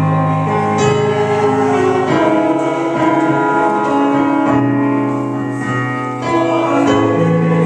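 A church congregation singing slow, long-held chords with keyboard accompaniment, each chord sustained for a second or more before the next.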